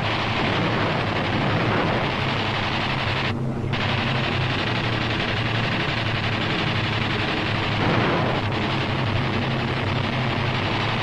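Fighter aircraft's machine guns firing in a rapid, continuous rattle over a steady engine drone, with a short break about three and a half seconds in.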